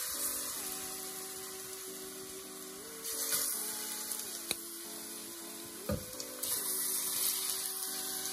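Ripe sweet plantain slices sizzling in hot oil in a non-stick frying pan, as more slices are laid in with a fork. The sizzle swells about three seconds in and again past the middle, with a couple of sharp clicks.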